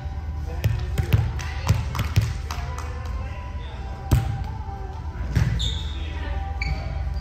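Volleyball being hit and bouncing on a gym court: a series of sharp, irregularly spaced ball strikes and thuds, the strongest about four seconds in, with voices in the background.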